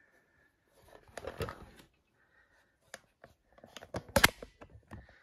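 Handling noise from a plastic electronic blood pressure monitor being held and moved: scattered clicks and rustling, with a louder burst about a second in and the loudest one about four seconds in.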